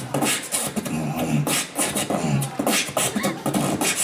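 Beatboxing into a handheld microphone: sharp, repeated drum-like hits and hissing cymbal-like sounds made with the mouth, with pitched low vocal sounds woven between them.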